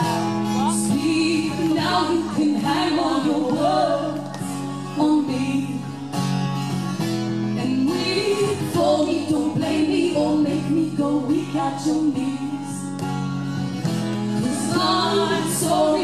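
Live song from a duo: a female voice singing over strummed acoustic guitar.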